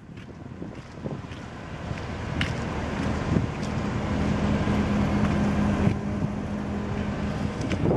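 Small motorboat's engine running as it passes on the river. It grows louder over the first few seconds and holds a steady low hum in the middle, with wind noise on the microphone and a low thump at the end.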